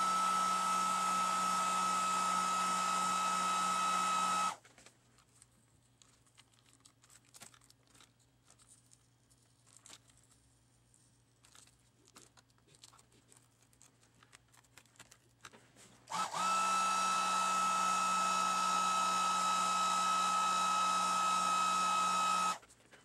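Heat gun blowing hot air onto a laptop's cracked touchscreen glass to soften its adhesive: a steady fan noise with a fixed whine, which switches off about four and a half seconds in and comes on again about sixteen seconds in, stopping just before the end. In the quiet gap, faint clicks and scraping as a hobby knife pries up the glass.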